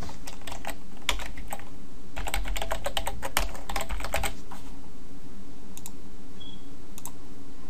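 Typing on a computer keyboard: a quick run of key presses, densest about two to four seconds in, then a few separate clicks later on, over a steady low hum.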